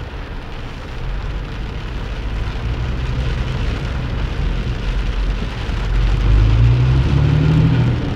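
Rain falling on a car's windshield and roof, heard from inside the car, over the low rumble of engines in slow traffic. Around six seconds in, an engine's pitch climbs for about two seconds as a vehicle speeds up.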